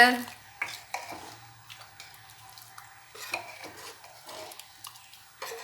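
Sambar being stirred in a cooking pot, with scattered light clinks and scrapes of the utensil against the pot.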